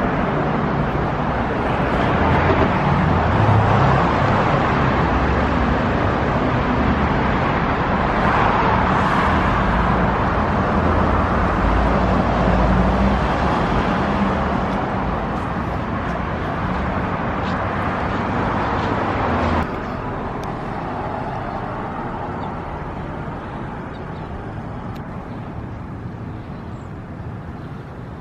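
Steady car and road noise with a low engine rumble; about twenty seconds in it drops suddenly to a quieter, thinner noise that slowly fades.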